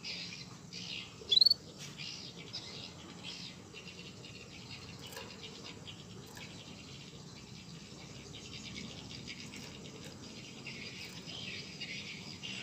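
A bird calling, with a short, loud rising whistle about a second and a half in, over a steady high-pitched chirring that swells and fades.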